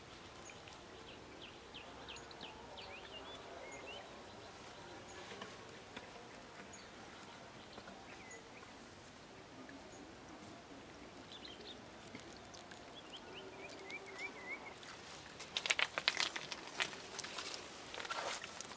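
Small birds chirping in short, repeated notes over a faint rural background. About three-quarters of the way in comes a burst of crackling and rustling as leafy brush is pushed through.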